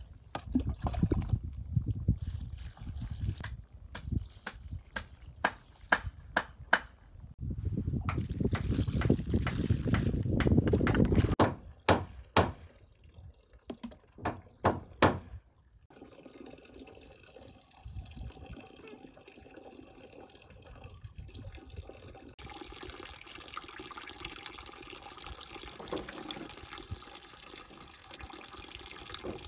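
Water being poured from a cup and trickling onto soil, with drips, as seedlings are watered by hand. A low rumble of wind on the microphone runs through the first half, and scattered sharp ticks are heard.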